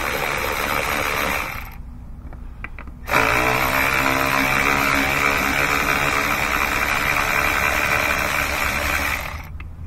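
Milwaukee cordless ratchet running on a 10 mm throttle-body bolt through a long extension, in two runs: about a second and a half, a pause, then a longer run of about six seconds that spins up at the start.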